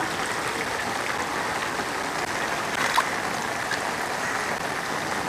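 Steady rain falling on standing floodwater, a constant even hiss of drops with a faint tick or two about halfway through.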